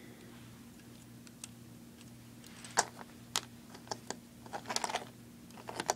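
Hard plastic Lego pieces clicking and tapping as the AT-RT walker's jointed legs and feet are bent and moved by hand. There are a few separate clicks, then a quick cluster of them near the end.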